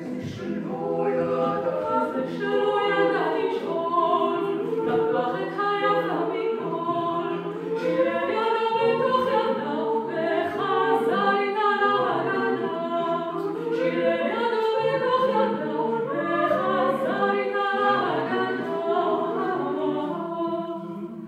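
A cappella vocal quartet of two women and two men singing in harmony, a new phrase beginning just at the start after a brief breath.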